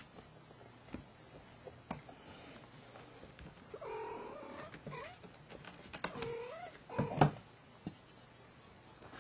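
Cats wrestling on a wooden floor: light taps and scuffs of paws and bodies, then from about four seconds in several drawn-out, wavering yowling cries. The loudest moment is near seven seconds, a cry together with a sharp knock.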